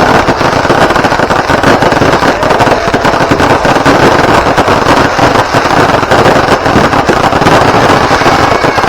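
Fireworks going off in a rapid, unbroken barrage of loud bangs and crackling.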